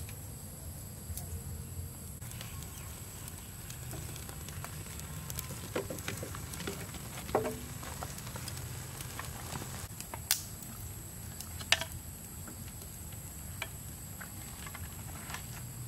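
Firewood and dry twigs being handled and laid into a metal drum stove as a small wood fire is lit: scattered light clicks and knocks, with a louder knock about seven seconds in. A steady high hiss lies underneath.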